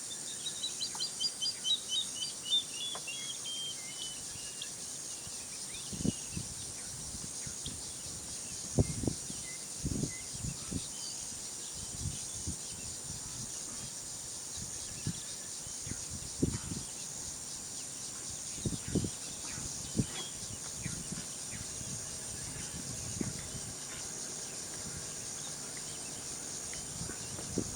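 A steady high insect drone runs throughout, with a bird's quick descending run of chirps in the first few seconds. Scattered soft low scuffs and thumps follow, the sound of African wild dog pups scraping at the dirt.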